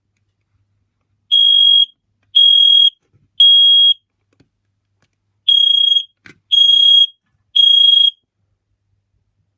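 FireAngel SB1 smoke alarm sounding on test: two rounds of three loud, high-pitched beeps, each about half a second long, with a pause of about a second and a half between the rounds. This is the standard three-beep smoke alarm pattern.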